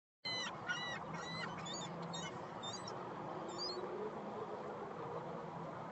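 Seagull calling: a quick run of about eight short calls that grow fainter and die out about four seconds in, over a steady rushing background.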